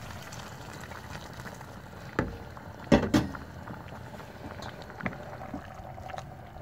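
Hot water poured from a kettle into a pressure cooker of stew, then a few sharp knocks about two to three seconds in, followed by a wooden spoon stirring the stew in the pot.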